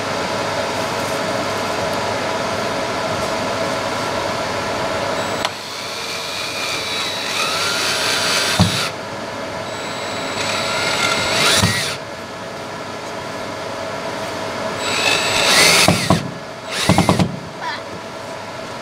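Cordless drill drilling down through foam into the wooden bed of a CNC table. The motor runs steadily for the first few seconds, then in several short spurts whose whine rises and cuts off.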